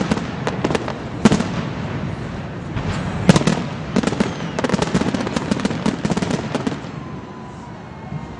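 Aerial fireworks bursting: a few sharp bangs in the first few seconds, then a rapid run of crackling reports from about four to seven seconds in, dying down near the end.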